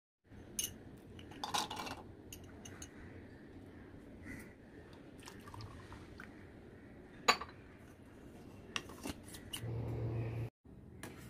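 Kitchen handling sounds: cups and containers clinking and knocking as milk is handled, with a sharp clink about seven seconds in. Near the end a steady low hum runs for about a second and stops abruptly.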